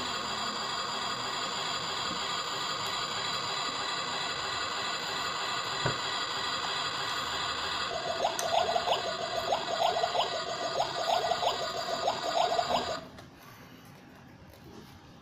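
Steady electronic sound effect with a hiss. A rapid pulsing tone joins in over its last few seconds before the sound cuts off suddenly.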